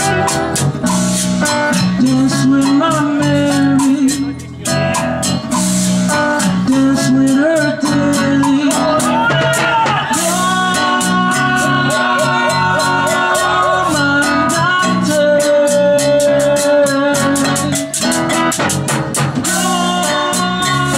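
Live cumbia band playing: a male singer over strummed acoustic guitar, with a metal scraper rasping a steady, quick rhythm.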